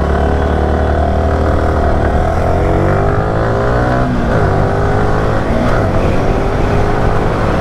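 Yamaha R15 V3 motorcycle's 155 cc single-cylinder engine accelerating hard from a standstill, its pitch rising through the revs. About four seconds in the pitch drops briefly at an upshift, then climbs again.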